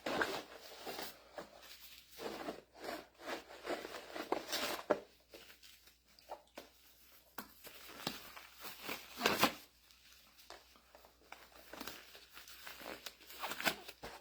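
Hands handling and working small parts with irregular rustling, scraping and clicking, and a louder clack about nine seconds in.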